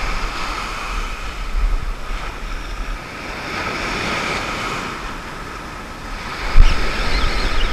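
Small ocean surf breaking close by and foam washing up the beach, a steady wash that swells a little around the middle, with wind buffeting the microphone. A single low thump near the end.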